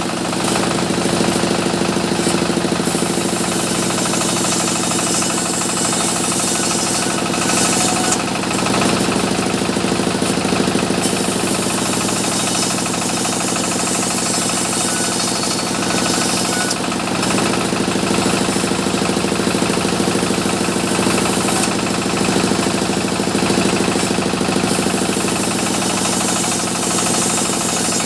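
Sawmill saw cutting mahogany, a steady loud machine drone whose sound turns brighter and hissier in several stretches of a few seconds each, as the blade works through the wood.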